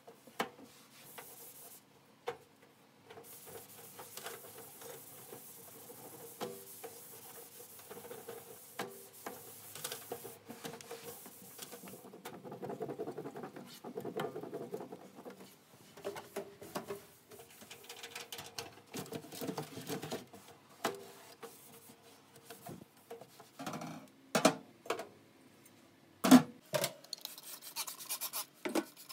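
A cloth wiping and rubbing over a stainless steel gas stovetop and a tiled wall, in stretches of soft scrubbing broken by small knocks. Near the end come a few sharp clanks of metal burner grates in a stainless sink.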